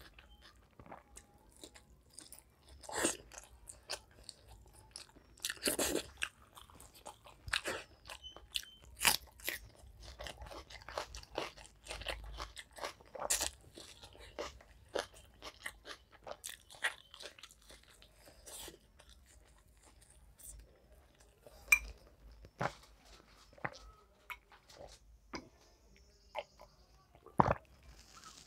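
A person eating close to the microphone: irregular biting, crunching and chewing of fried potato snacks such as aloo chop and soaked rice, with sharp crunches scattered through.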